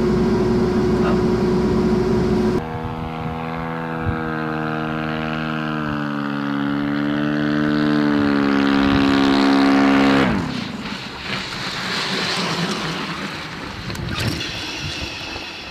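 Steady equipment hum for the first couple of seconds. Then the engine and propeller of an RQ-7 Shadow drone drone loudly as it flies low along the runway, and the pitch drops sharply as it passes about ten seconds in. A higher whine comes in near the end.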